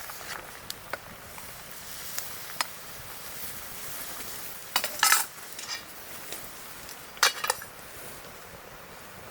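Cutlery and dishes clinking at a meal: a few light clicks, then two louder clatters of metal on dishware, about five and about seven seconds in.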